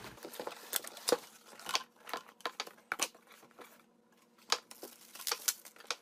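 Cardboard product box being handled and opened: short irregular scrapes, taps and crinkles of cardboard flaps and packaging, with a brief lull a little past the middle.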